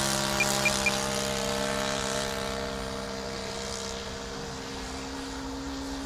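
A fuel-burning engine of a large RC model biplane runs steadily in flight at constant pitch, slowly fading as the plane flies away. Three short high beeps sound in quick succession about half a second in.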